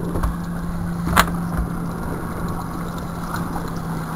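Boat engine idling with a steady low hum, and a single sharp knock about a second in.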